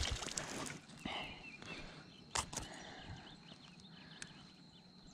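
Faint handling noises of fishing tackle: light rustles and small ticks, with one sharp click about two and a half seconds in.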